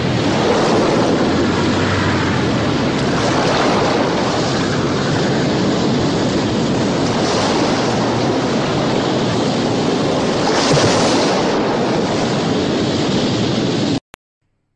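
Rough sea and wind: waves breaking and spray rushing around a small boat in heavy swell, a steady loud rush that swells briefly a little after ten seconds and cuts off suddenly near the end.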